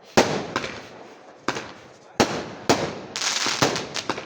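A batch of firecrackers going off: sharp, irregularly spaced bangs, about eight of them, with a dense run of rapid crackling a little after three seconds in.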